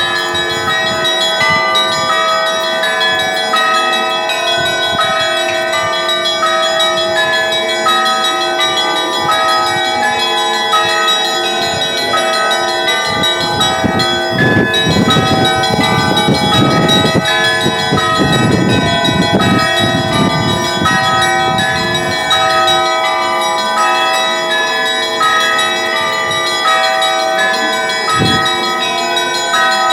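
Russian Orthodox church bells ringing: many bells of different pitches struck in quick succession, their tones overlapping and ringing on, growing fuller and a little louder for several seconds midway.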